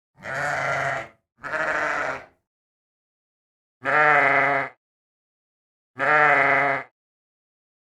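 Sheep bleating four times, each call about a second long: two close together, then two louder ones about two seconds apart.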